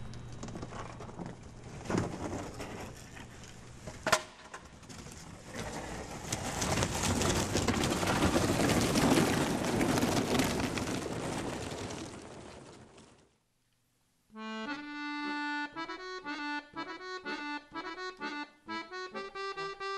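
A thump and a sharp click, then a rushing noise that swells over several seconds and fades out into a second of silence. Accordion music then begins, playing a tune of separate notes.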